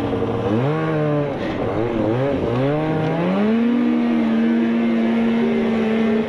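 Fan-cooled two-stroke snowmobile engine under load: its revs swing up and down for the first few seconds, then climb and hold steady at high revs.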